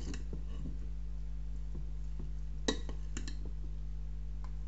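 Metal spoon clinking against a glass mixing bowl while stirring seasoned chicken wings. There are a handful of sharp clinks, the loudest a little under three seconds in and a quick pair just after, over a steady low hum.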